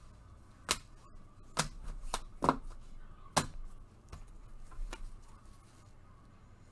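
Hard plastic card holders clacking as they are handled and set down one after another: about eight sharp clicks at uneven intervals, most of them in the first four seconds.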